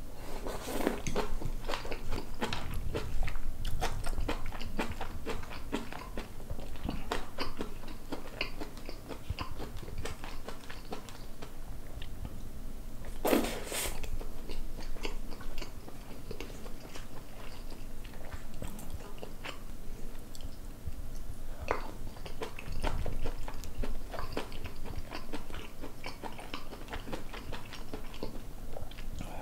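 Close-miked mouth sounds of eating braised kimchi, pork belly and rice: steady wet chewing with many small clicks and crunches. One louder, brief noisy sound about thirteen seconds in.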